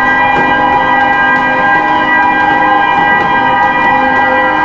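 Ship's horn sounding one long, loud, steady blast, a chord of several held tones, as the hull is launched.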